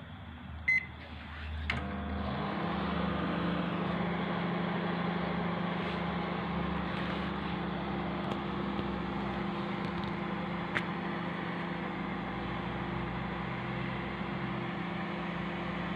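Microwave oven keypad beep, then a click as the oven starts and a steady hum of it running on a two-minute test. The door switch has been repaired, so the oven now runs with the door shut.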